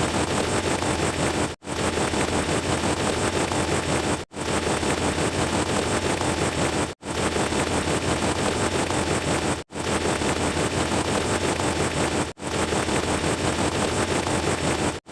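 A loud, dense rushing noise sound effect played on a loop: segments of about two and a half seconds, each cut off by a brief dropout, six times over.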